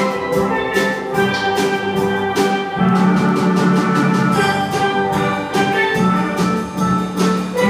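Steel drum band playing a heavy metal song arranged for steelpans, with notes struck in a steady, driving rhythm over held low notes.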